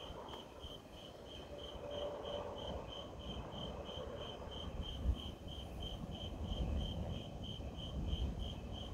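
Crickets chirping steadily at about three chirps a second, over a low rumble.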